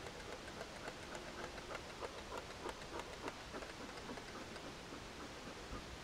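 A bee smoker being worked by hand: irregular light clicks and puffs, thickest in the middle and thinning out near the end, over a steady low hiss.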